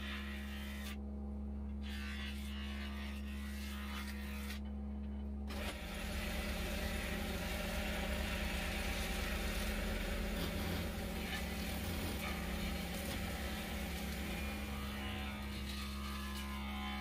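Wood lathe motor humming steadily while a turning chisel cuts the spinning teak workpiece. The rough shaving noise of the cut starts about six seconds in and fades out near the end.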